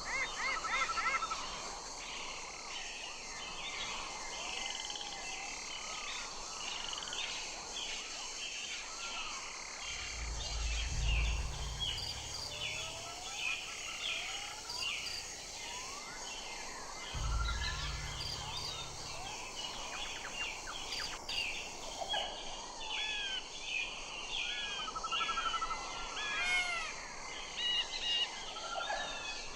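A chorus of birds calling, many short chirps and rising and falling calls overlapping throughout over a steady hiss. Twice, around ten and seventeen seconds in, a low rumble comes in for a couple of seconds.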